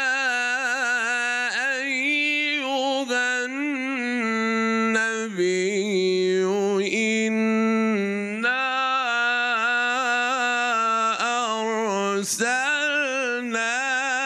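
Male Qur'an reciter chanting in the melodic mujawwad style, one unaccompanied voice into a microphone, holding out long ornamented notes that bend and waver in pitch, with short breaths between phrases.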